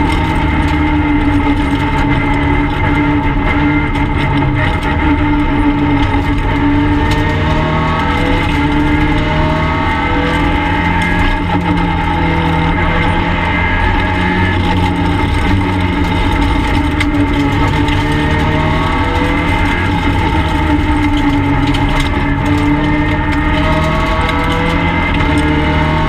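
Peugeot 208 R2B rally car's engine, heard from inside the stripped cabin, driven hard at stage pace: the revs climb and drop again and again through the gears and the corners.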